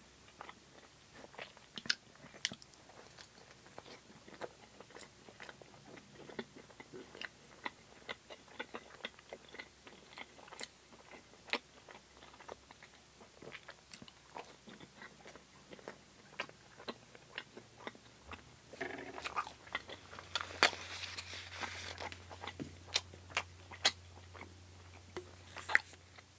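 Close-miked eating of a fluffy fried bread stick: soft bites and wet chewing with many small mouth clicks. A louder stretch of rustling noise comes about three quarters of the way through.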